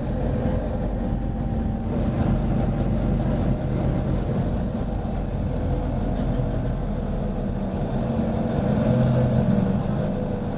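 Volvo B9TL double-decker bus's six-cylinder diesel engine running steadily, its note rising a little near the end.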